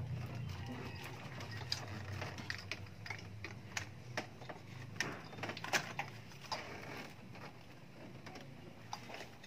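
Scattered light clicks and small plastic and metal knocks of wiring harness connectors and clips being handled by hand on the engine's top end, with about a dozen sharper clicks bunched in the middle. A faint low hum underneath fades away in the first half.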